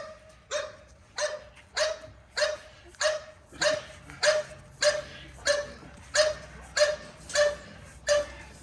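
A dog barking over and over at a steady pace, about three barks every two seconds, each bark at the same pitch.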